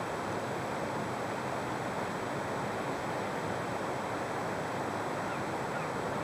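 Steady, even rushing noise with no distinct events, along with a faint constant high tone.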